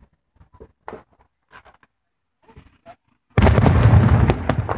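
A firework going off: a few faint pops early, then about three and a half seconds in a sudden loud boom that rumbles and fades away, with sharp cracks through the tail.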